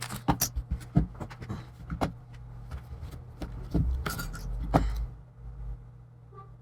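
Hands working on a Chromebook's plastic lid and hinge parts: scattered small clicks, taps and rustling, busiest for the first five seconds and then quieter, over a steady low hum.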